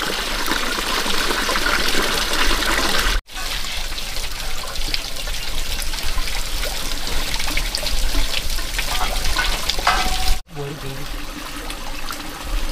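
Water running and splashing steadily, breaking off abruptly twice.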